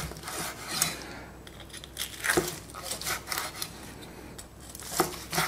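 Kitchen knife sawing through the crisp skin of roast pork belly on a wooden cutting board, a scratchy rasping broken by a few sharp crunches and knocks of the blade.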